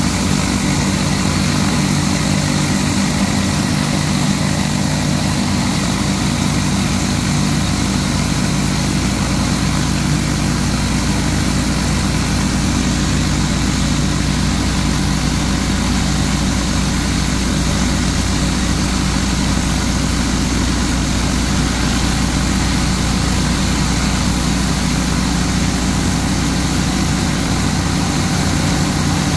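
Steady hiss of a Whisper Wash Mini Mondo 31-inch surface cleaner's spinning spray bar blasting hot water onto concrete, over the constant drone of the pressure washer's Honda iGX800 V-twin engine running under load.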